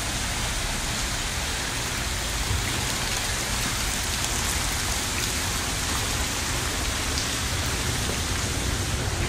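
Steady rushing hiss of water falling from a canopy and splashing on paving, with a low rumble underneath.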